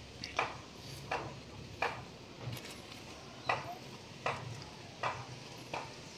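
Faint short knocks, evenly spaced at about one every three-quarters of a second, over a low steady hum.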